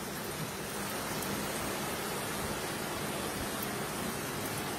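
Potato chunks deep-frying in hot sunflower oil, a steady even sizzle.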